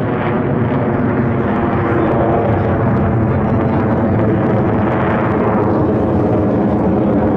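Jet aircraft engine noise, loud and continuous, with a brighter swell about five seconds in as the aircraft passes.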